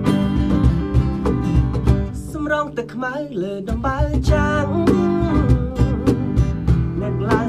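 Background music: a song with strummed acoustic guitar over a steady beat, and a voice that starts singing about two seconds in.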